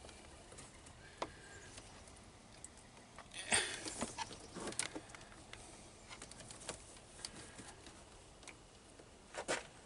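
Faint scattered clicks, taps and rustles of hands working among plastic air brake lines and a fitting, with a louder cluster of knocks between about three and five seconds in and another short one near the end.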